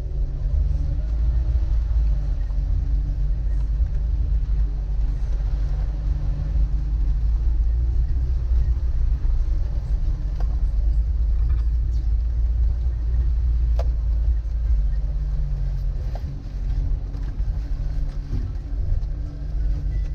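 Suzuki Vitara's 1.6 EFI four-cylinder engine running steadily as the vehicle drives off-road, heard as a constant low rumble. A few faint clicks or knocks sound now and then.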